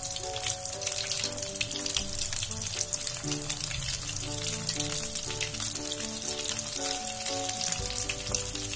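Potato samosa rolls deep-frying in oil over a low flame: a steady crackling sizzle of many small bubbles. Soft background music plays a simple melody underneath.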